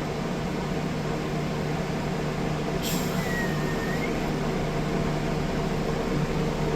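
Steady low mechanical hum of room equipment. About three seconds in there is one short sharp sound, then a faint high tone for about a second.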